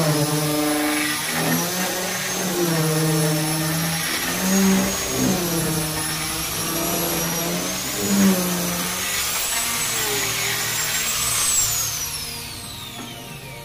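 Angle grinder with a sanding disc sanding teak wood: a high motor whine that wavers up and down as the disc is worked over the wood. Near the end the grinder is switched off and its whine falls steadily as it spins down.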